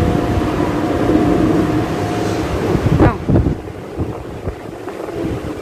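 Steady rushing noise of air buffeting the microphone, with one short rising-and-falling voice-like sound about three seconds in; the rushing gets quieter just after it.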